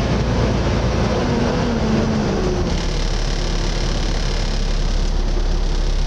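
Volvo B7TL double-decker bus's six-cylinder diesel and its cooling fan running, heard inside on the upper deck, with the vacuum-cleaner-like fan whine the bus is known for. A pitched drone fades about two and a half seconds in, leaving a steady low hum.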